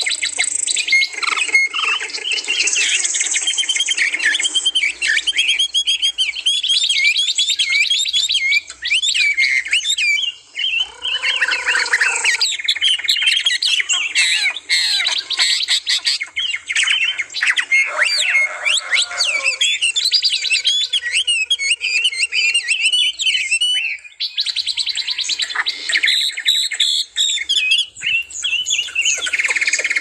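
Several caged songbirds singing and chirping together: a dense, overlapping chorus of high, rapid twitters and trills. A few lower, longer calls come through about 11 and 20 seconds in.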